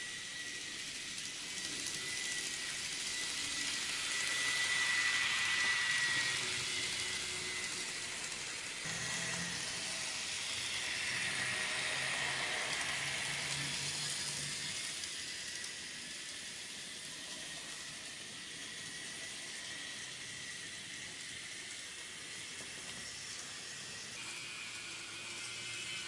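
N gauge model of a Keihan 3000 series train running along the track: a hissing rolling noise with a thin high motor whine. It gets louder as the train comes near and passes, and turns fainter about two-thirds of the way through.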